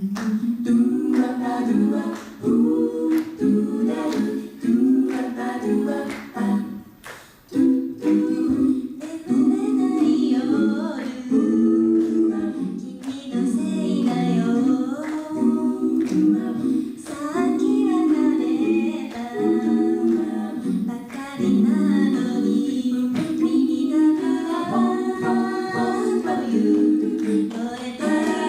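An all-female five-voice a cappella group singing in close harmony, the voices coming in abruptly together, with sharp percussive clicks keeping a steady beat under the chords.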